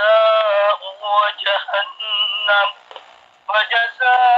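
A man reciting the Quran in a slow, melodic chant, drawing out long wavering notes, with a short pause about three seconds in before the next phrase begins. The voice sounds thin and narrow, with no bass.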